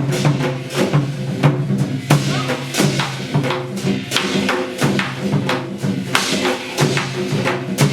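Korean shamanic gut music in the Hwanghae-do style, played live: dense drum and percussion strikes keep a fast, steady beat under a melodic line of held notes.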